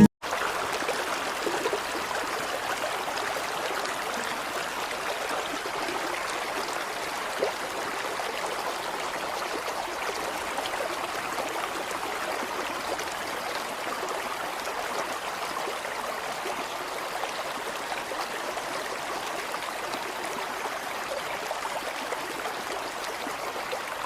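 Running water flowing steadily, like a small stream trickling along a model river channel.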